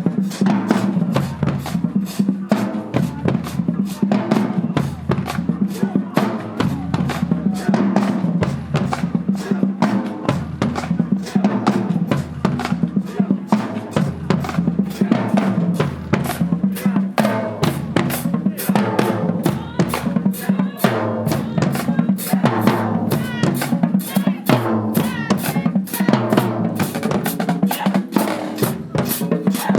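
High school marching band drumline playing a marching cadence: rapid snare hits and rolls over steady bass drum beats.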